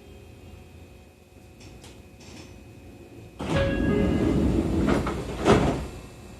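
Passenger doors of a Seibu 30000 series train sliding, a rush of sound about three and a half seconds in that ends in a sharp thump a couple of seconds later.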